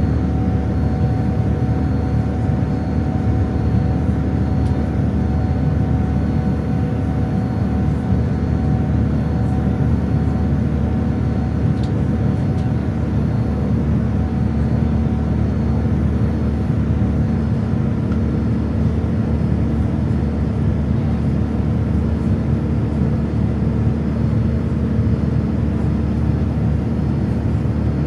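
Steady cabin noise inside a Boeing 787-9 airliner: a deep, even rumble with a few faint steady hums on top, unchanging throughout.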